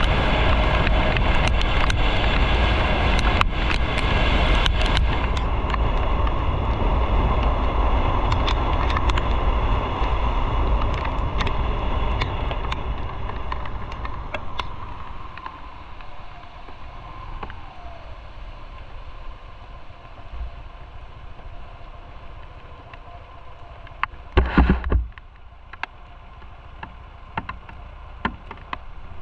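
Motorcycle engine and wind noise while riding, easing off over several seconds to a quieter steady running as the bike slows to idle. A brief, very loud pitched blast sounds near the end.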